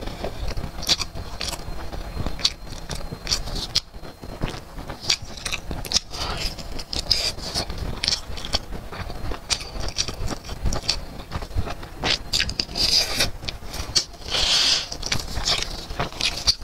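Close-miked chewing of crispy fried chicken: many short, irregular crunches and crackles as the fried skin breaks between the teeth.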